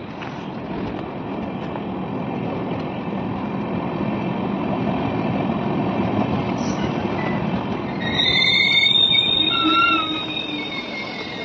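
LHB coaches of the Vande Sadharan push-pull express rolling along a platform, a steady rumble that slowly grows louder. About eight seconds in, the wheels squeal high-pitched for about two seconds.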